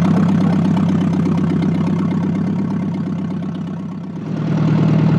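1953 Ford Golden Jubilee tractor's four-cylinder gasoline engine idling steadily; its sound fades somewhat toward about four seconds in, then comes back up sharply.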